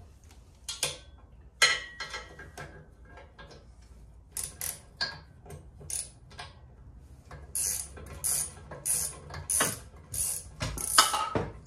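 Hand ratchet wrench working a bolt, with scattered metal clinks of tools on steel, then from about seven seconds in a steady run of ratcheting strokes, roughly one and a half a second.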